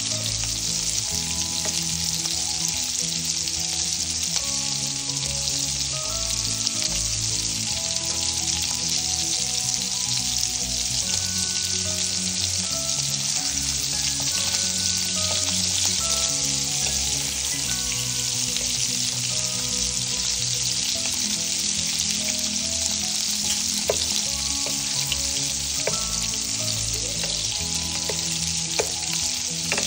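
Sliced sausage rounds sizzling steadily in oil in a nonstick frying pan, stirred with a wooden spatula, with a few light taps of the spatula against the pan near the end.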